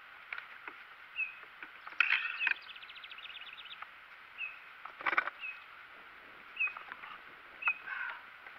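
Birds calling: a short high chirp repeats about once a second, and a loud call breaks into a fast rattling trill about two seconds in. A single knock comes about five seconds in.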